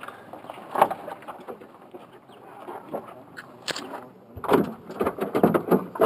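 Metal clinking and knocking of hand-held tools and exhaust parts being handled during a repair under a car. There are scattered single clinks, then a quick run of clanks and rattles from about four and a half seconds in.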